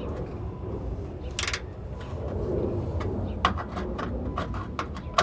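Scattered sharp metallic clicks as a ratchet with a bolt extractor socket is worked on a stuck battery-tray bolt, over a low steady rumble. One longer click comes about one and a half seconds in, and a handful more come near the end.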